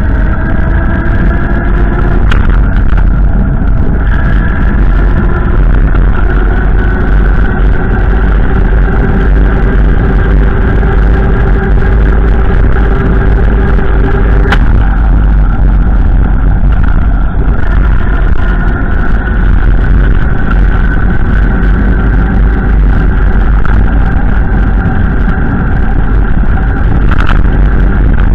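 A vehicle driving, heard as a loud, steady low rumble with an engine hum whose pitch slowly rises and steps a few times, with a sharp click about halfway through.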